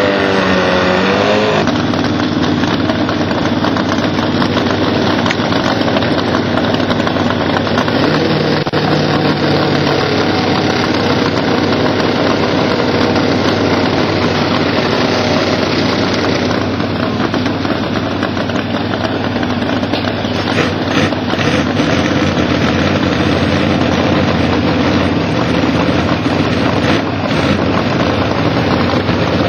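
A motor vehicle engine running steadily and loudly, its pitch wavering up and down in the first second or two and then holding even.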